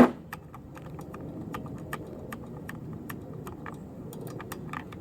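Light metallic clicks and clinks at an uneven pace, with a sharper knock right at the start: hand tools and small metal parts being handled while bolts are taken off a lawn mower's air cleaner housing.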